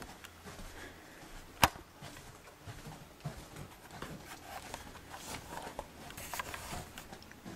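Faint rustling handling noise and soft footsteps on carpet as a handheld camera is carried through a small room, with one sharp click about a second and a half in.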